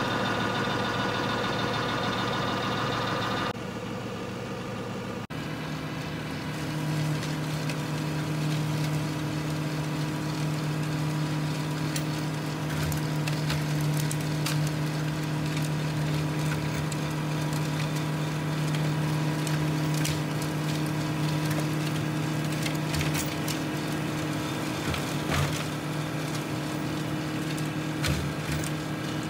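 John Deere tractor running a PTO-driven 60-inch Titan flail mower that is chopping brush, twigs and leaf litter, with scattered sharp cracks and ticks of debris hitting the flails. A steady low drone of the spinning mower sets in about six seconds in.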